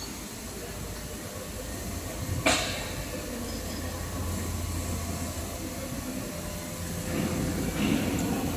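Machinery of a sheet-metal HVAC duct production line running with a steady low hum and hiss. One sharp metallic bang comes about two and a half seconds in, and louder rumbling starts near the end.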